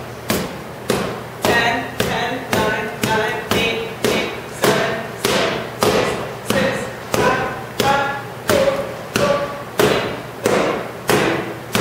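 Boxing gloves punching padded focus mitts, one sharp smack after another at a steady rhythm of about three every two seconds.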